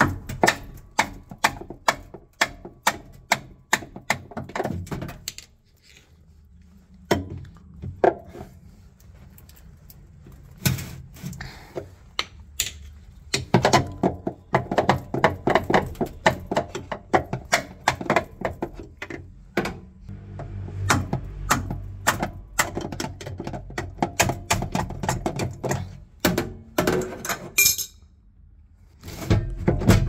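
Repeated hammer blows on a steel chisel set against a washing machine motor's cast-aluminium mounting bracket, driving the press-fitted motor off its mount on the tub. The blows come as sharp metallic knocks, steady at about two a second at first, then in bursts and a dense flurry in the middle.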